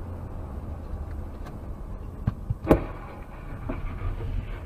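Low road and engine rumble of a car driving on a winter highway, heard from inside the car. A few short knocks and one sharp, loud thud come about halfway through.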